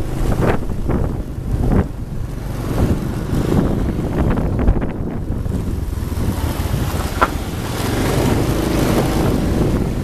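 Wind buffeting the microphone on a moving motorbike, over the steady rumble of the bike's engine and road noise.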